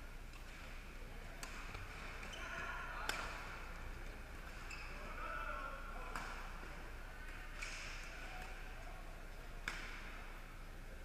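Badminton rackets striking a shuttlecock in a doubles rally: six sharp cracks roughly a second and a half apart, over a murmur of voices.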